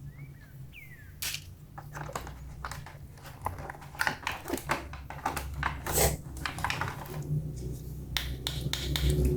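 Plastic toy and packaging being handled: scattered small clicks, taps and rustles at irregular intervals, a few of them sharper, over a low steady hum.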